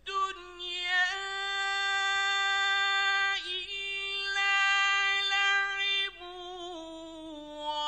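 Male Quran reciter chanting in the melodic mujawwad style, holding long, high, sustained notes with ornamented turns and stepping lower in pitch near the end.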